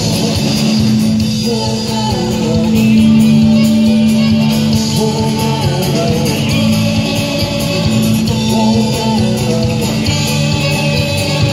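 Live folk-rock band playing: fiddle, acoustic and electric guitars and drums.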